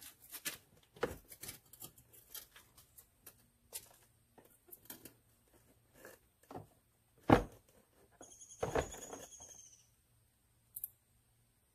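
ATV grab bar being worked up and out from under the rear plastic fender: a string of light knocks, clicks and rattles, one sharp knock about seven seconds in, then a squeaky scrape lasting about a second and a half.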